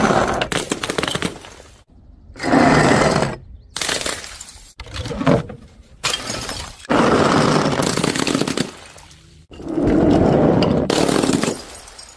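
Objects being smashed and crushed, breaking and shattering in a series of loud bursts, each lasting a second or two, about every two seconds.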